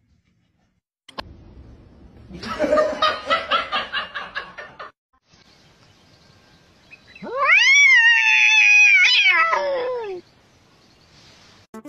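A cat making a rapid pulsing call for a couple of seconds, then one long, loud yowl that rises and then falls in pitch.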